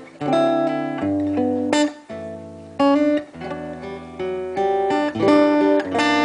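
Acoustic guitar strumming chords, with a sharp new attack every half second to a second, in an instrumental break of a song played live.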